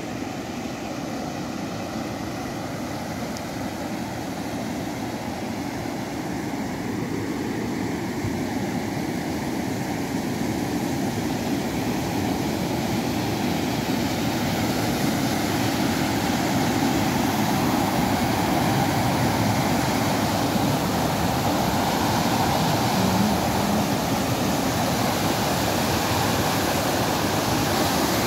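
Glacier-fed mountain stream and waterfall: white water pouring over rocks in a steady wash that grows gradually louder.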